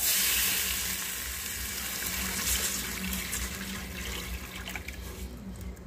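Bean broth poured in a steady stream from a container into a pot of fried pork cracklings, onion and garlic, splashing as it fills; it starts suddenly, is loudest at first and slowly fades as the pour goes on.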